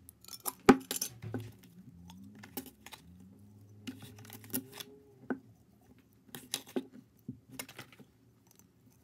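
Glass mason jar being handled: its metal screw lid comes off with a sharp clink about a second in, then soft squishy toys are put into the jar, giving scattered light taps and clinks against the glass.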